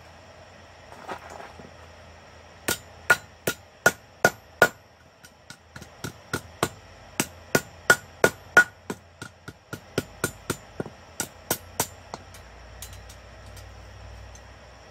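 A soft-face hammer striking a quarter-inch steel hairpin over the horn of an anvil: a quick run of about thirty blows, some three a second, each with a short ringing note. The blows start about three seconds in and stop about twelve seconds in.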